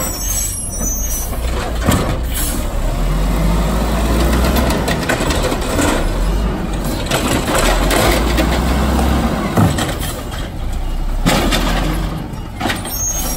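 Automated side-loader garbage truck's diesel engine running hard and steady while its hydraulic arm lifts a wheeled cart, tips it over the hopper and sets it down, with a few sharp knocks of the cart against the arm and body.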